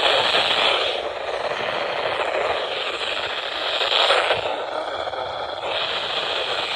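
Radio static: a steady hiss from a radio receiver with no clear signal, with a brief louder surge about four seconds in.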